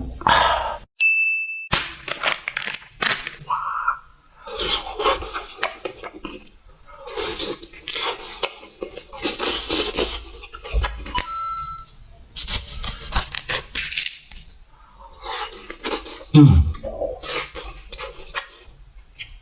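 Close-miked eating sounds: crunching and chewing, with crinkling and tearing of snack packaging, in a string of sharp irregular bursts. A short high tone sounds about a second in.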